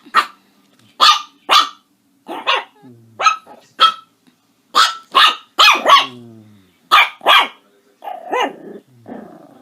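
A dog barking: short, sharp, loud barks, mostly in pairs, about a dozen in all, with a rougher, lower call near the end.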